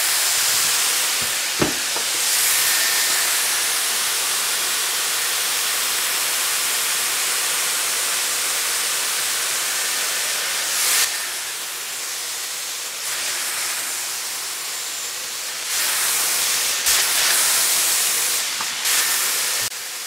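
Dyson Airwrap styler with the soft smoothing brush attachment blowing at its highest airflow and lowest heat setting, a steady hiss of air as it is drawn through hair. The hiss drops a little for a few seconds past the middle, then comes back up.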